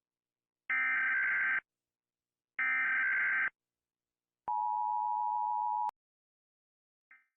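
Emergency Alert System broadcast tones: two short, screechy data bursts of about a second each, nearly two seconds apart, then a steady two-note attention tone for about a second and a half that cuts off suddenly.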